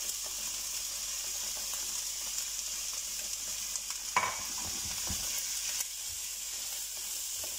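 Diced courgette, tomato and shredded chicken sizzling in oil in a frying pan, a steady high hiss. About four seconds in there is a clatter of a utensil against the pan, then a spatula stirring the vegetables.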